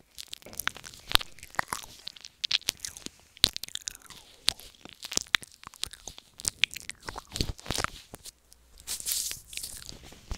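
Close-miked wet mouth sounds for ASMR 'ear eating': irregular quick clicks, smacks and sucking noises made right against a wired earbud microphone, with a longer breathy hiss about nine seconds in.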